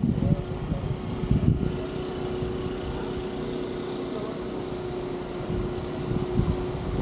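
A steady mechanical hum, one held tone, over a low rumble, with a few low bumps in the first two seconds and again near the end.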